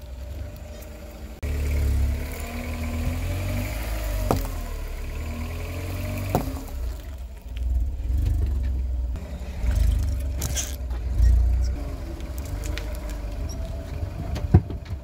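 A car's engine running at low revs with a steady low rumble as the car creeps forward, its tyre crushing small objects with a few sharp cracks and crunches; the loudest crack comes near the end.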